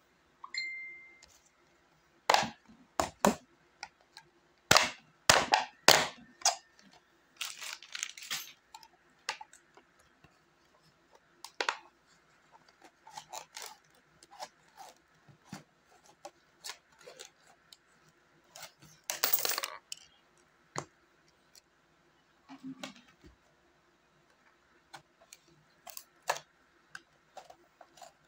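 Scissors snipping through a hard plastic bottle coin bank: a run of sharp, irregular snaps and crackles of the plastic, with a couple of longer crinkling stretches and coins clinking inside.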